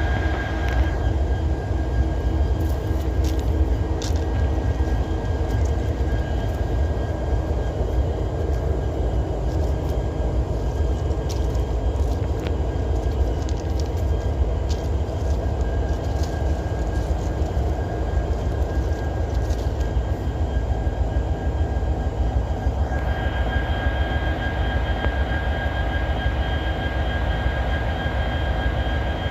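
Diesel-electric freight locomotive idling: a steady low rumble with a thin whine over it. The whine drops out about a second in and comes back near the end.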